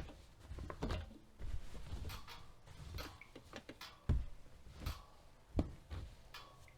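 Irregular soft knocks, clicks and rustling at an AEG Öko-Lavamat front-loading washing machine, with two louder thumps about four and five and a half seconds in.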